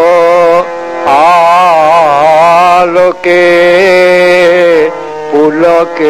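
Male vocalist singing a Bengali devotional song in long, ornamented notes with a wavering pitch, over a steady low drone, with short breaks between phrases.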